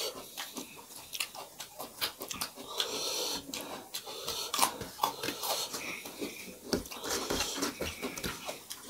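Two people eating rice and dal by hand: wet chewing and smacking mouth sounds, with many short clicks as fingers mix and squeeze the rice on steel plates.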